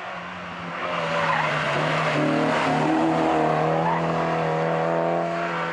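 Volkswagen Golf Mk1 revving hard through a bend on a hillclimb, with tyres squealing. The engine swells about a second in and stays loud for about four seconds as it pulls away.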